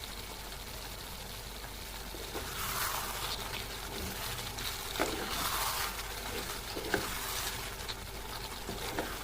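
A spoon stirring a thick coconut-milk chicken curry gravy in the pan as it cooks, with a few light knocks of the spoon against the pan.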